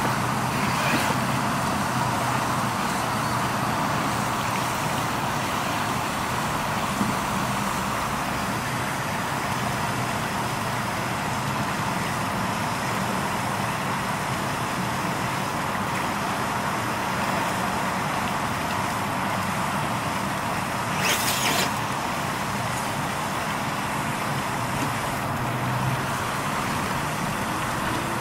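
Traxxas TRX-4 Sport RC rock crawler's electric motor and geared drivetrain running steadily under load as it crawls up a boulder through shallow water, with a low steady hum. A brief hiss about 21 seconds in.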